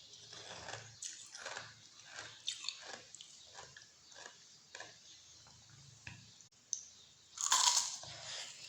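A person chewing food, with short sharp bites at about three a second and a louder burst near the end.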